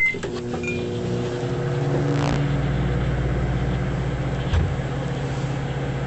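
Microwave oven running with a steady electrical hum, after a short beep at the very start. A brief knock sounds about four and a half seconds in.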